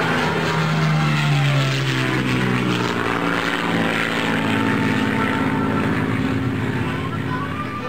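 Single-engine propeller plane's engine and propeller heard from inside the cockpit, running steadily as the plane comes over the runway threshold to land.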